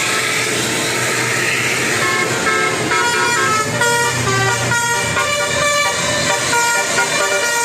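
Bus telolet horn, a multi-tone musical horn, playing a quick tune of short stepped notes from about two seconds in. A hissing noise comes before it.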